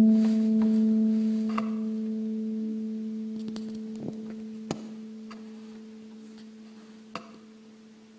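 The final chord of an acoustic guitar piece ringing out, a low note and its octave slowly dying away to almost nothing, with a few faint clicks along the way.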